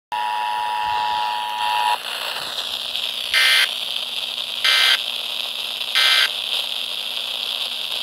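Emergency Alert System broadcast received on an FM radio: the steady two-tone attention signal, ending about two seconds in, followed by radio hiss and three short digital data-burst screeches about 1.3 seconds apart.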